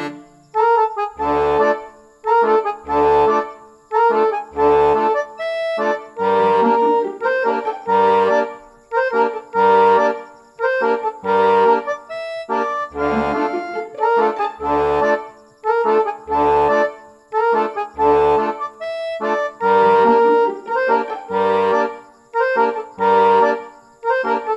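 Instrumental background music: held melody notes over a low bass note that returns regularly, about every second and a half or two.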